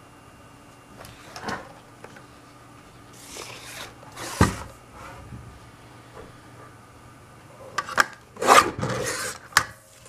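Card stock being handled on a paper trimmer: paper rustling and sliding, with sharp clicks and short rasping scrapes. The loudest comes about four and a half seconds in, and a cluster of clicks and scrapes comes near the end.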